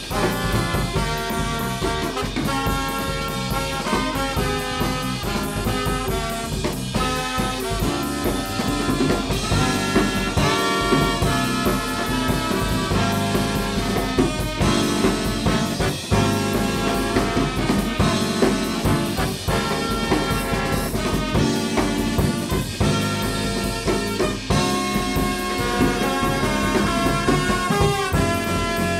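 Jazz big band playing swing live: trumpets and trombones playing ensemble lines over a driving drum kit.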